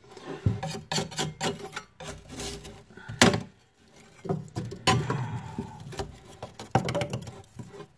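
Thin cut wooden pieces being pried loose and lifted from taped-down stock with a metal spatula: irregular clicks, scrapes and knocks of wood and metal, with one sharp knock about three seconds in.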